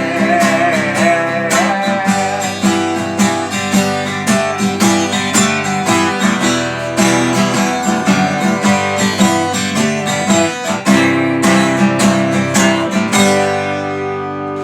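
Acoustic guitar strummed in steady rhythm as an instrumental outro after the last sung line. Near the end a final chord is left to ring and fade.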